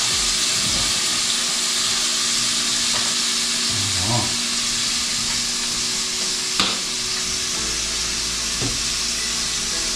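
Meat frying in a pot on the stove, a steady sizzle, with one sharp knock about six and a half seconds in.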